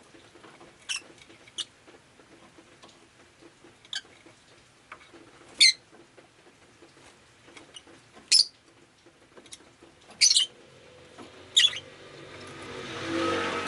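Rosy-faced lovebird giving short, sharp, high chirps one at a time, about seven of them a second or two apart. Near the end, the sound of a passing vehicle swells up.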